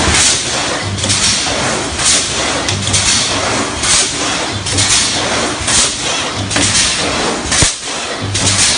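Steel truss welding machine running in its cycle: dense mechanical clatter with sharp bursts of hiss about once a second, a low hum that comes and goes every couple of seconds, and a single sharp knock near the end.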